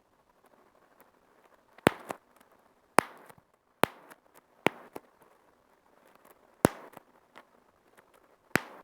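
Bubble wrap being popped by hand: six sharp, loud pops at uneven intervals, with faint small ticks from the plastic between them.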